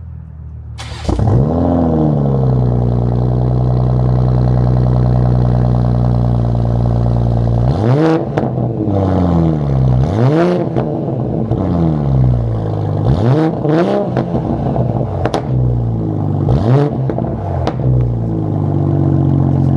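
2020 Toyota Supra with a Tomei dual aftermarket exhaust on the stock downpipe starting up about a second in and settling into a steady idle. It then gets several quick throttle blips, each rising and falling in pitch, and drops back to idle near the end.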